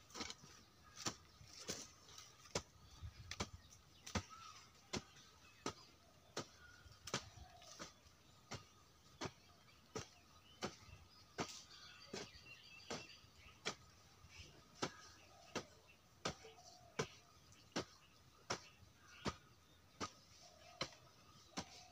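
Long-handled hoe chopping into garden soil in a steady rhythm, a sharp strike roughly every three quarters of a second, as the ground is dug over.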